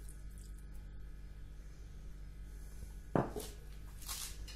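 Quiet kitchen room tone with a low steady hum. About three seconds in there is a single sharp knock, followed by a couple of brief soft rustles.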